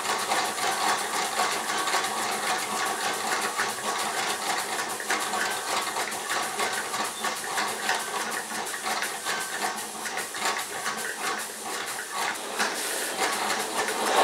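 Small model steam engine running with a rapid fine ticking and a steady steam-and-burner hiss, short of steam because the boiler is not making quite enough. Right at the end a louder rushing hiss starts as a blowtorch is brought to the boiler.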